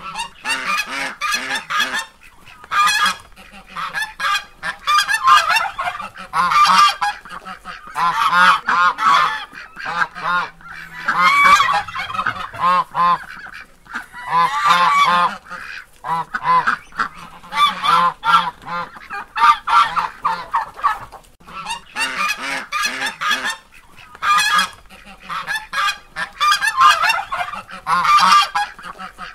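Goose honking over and over, in runs of calls a second or two long with short pauses between.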